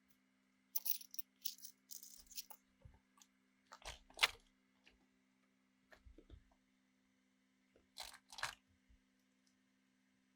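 Handling noises from hand work at a bench: short clicks, scrapes and rustles, clustered in the first couple of seconds, a louder one about four seconds in, and two more near eight seconds, over a faint steady low hum.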